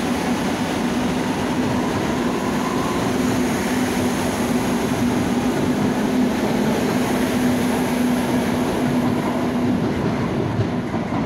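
Madrid Metro train pulling out of an underground station: a steady rumble of wheels and running gear with a low held hum. The sound eases off near the end as the last car leaves the platform.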